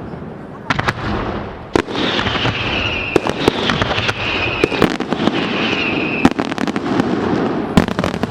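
Fireworks going off: a rapid string of sharp bangs and crackling, with a high whistle that falls slightly in pitch from about two seconds in to about six seconds in.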